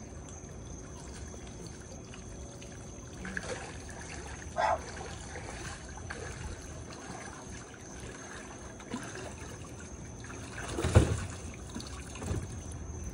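Water trickling and dripping steadily, with a sharp thump about eleven seconds in.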